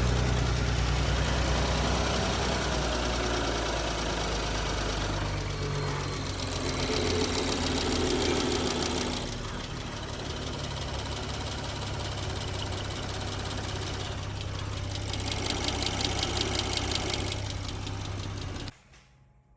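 The 2.9-litre twin-turbo V6 of a 2019 Porsche Cayenne S running, with a rapid ticking, which the mechanic believes comes from failing rocker arms. The sound cuts off abruptly near the end.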